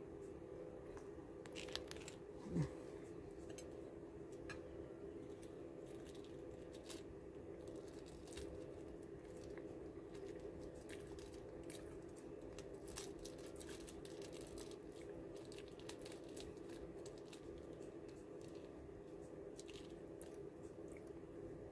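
Faint crinkling and small ticks of a thin plastic packet being handled and peeled open by fingers, over a steady low hum. About two and a half seconds in, a short falling tone stands out as the loudest sound.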